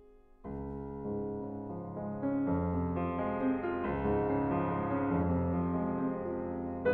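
Background piano music: a soft held chord fades, then about half a second in a fuller passage with deep bass notes comes in and grows louder.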